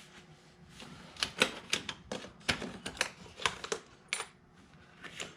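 A string of irregular sharp clicks and clacks from hand work on the truck's factory air intake, about a dozen, bunched between one and four and a half seconds in.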